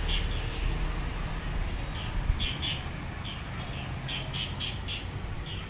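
Small birds chirping: a dozen or so short high chirps, scattered irregularly, over a low steady rumble.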